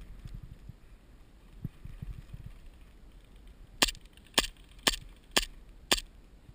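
Airsoft gun fired five single shots, about two a second, each a sharp crack.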